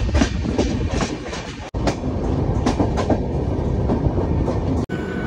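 Rajdhani Express coaches running at speed: the wheels clack rapidly over rail joints, about five clacks a second, over a steady rushing noise, as heard from an open coach door. The sound cuts off suddenly twice, about a second and a half in and near the end.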